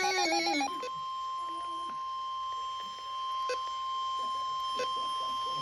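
NOAA Weather Radio 1050 Hz warning alarm tone: after the tail of a voice, a single steady high beep starts just under a second in and holds without a break. It signals a tornado warning.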